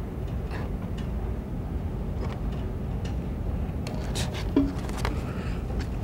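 Steady low background rumble of a room, with a few faint ticks and rustles of handling and one short, louder sound about four and a half seconds in.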